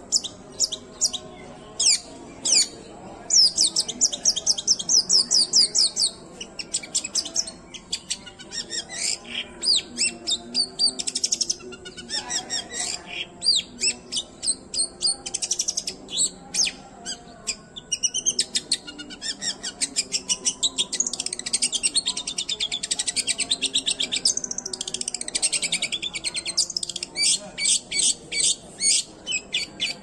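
Long-tailed shrike (cendet) singing loudly and continuously: a varied run of sharp, high chirps, fast series of repeated notes and rapid trills.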